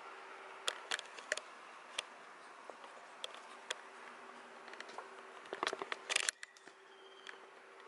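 A kitten batting at a toy mouse on a string across a wooden floor: scattered sharp taps and clicks of paws, claws and toy on the boards, with a quick flurry of louder taps about six seconds in.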